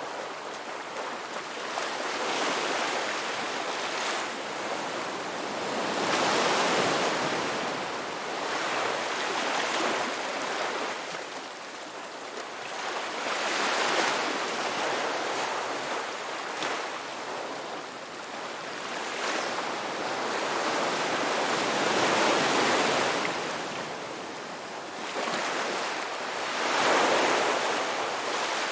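Ocean waves breaking on a shore: a steady rush of surf that swells and falls back, each wave cresting about every seven or eight seconds.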